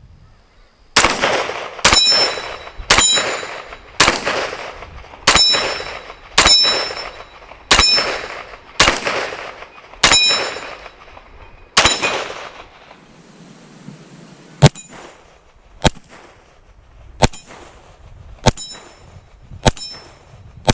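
Ruger PC Charger 9mm pistol fired in a steady string, about one shot a second: ten shots with long echoing tails, then a pause of about two seconds and five sharper shots. Many shots are followed by the brief high ring of a steel target being hit.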